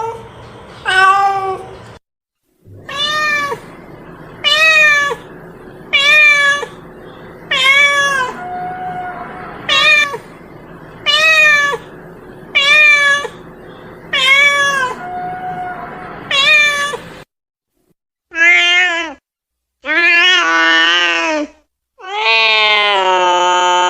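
A domestic cat meowing over and over, one short meow that rises and falls about every second and a half. Near the end, after a short break, come longer drawn-out meows, the last one held for a couple of seconds.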